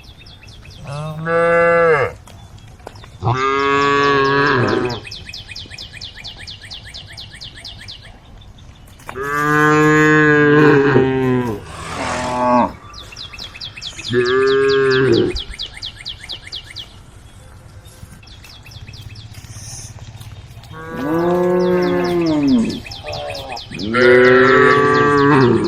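Cows mooing: about seven long, loud calls one after another, separated by short pauses, some pairs close together.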